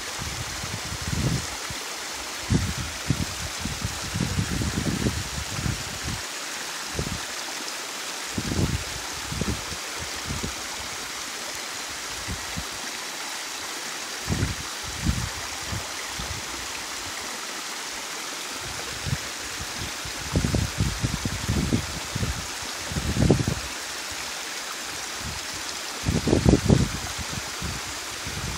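Narrow waterfall pouring into a rocky stream: a steady rushing hiss of falling water. Short, irregular low rumbles break in every few seconds, and the loudest come near the end.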